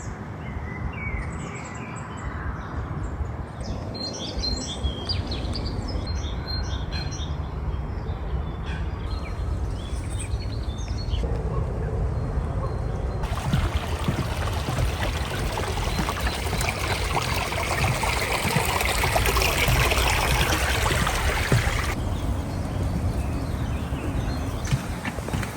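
Small songbirds chirping in short calls over a low steady rumble; about halfway through a steady rush of running water takes over, then drops away again near the end.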